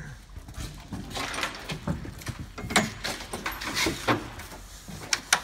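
Cardboard boxes being shoved, scraped and bumped into place in a cargo trailer: irregular scraping and rustling with knocks, the sharpest a little before the middle and near the end.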